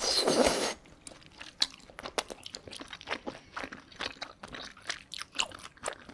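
A person slurping a mouthful of Chinese glass noodles in malatang broth close to the microphone, a loud slurp lasting under a second, followed by chewing with many small wet clicks and smacks.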